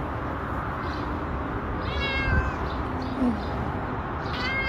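A cat meowing twice, short high-pitched meows that fall in pitch, one about two seconds in and one near the end, over a steady background hiss.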